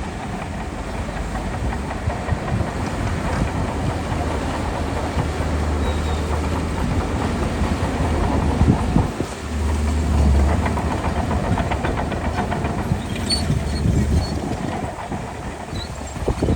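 Shantui DH17C2 crawler bulldozer's diesel engine running under load, with its steel tracks clanking and rattling as it pushes soil. The engine's low hum drops out briefly about nine seconds in, then comes back.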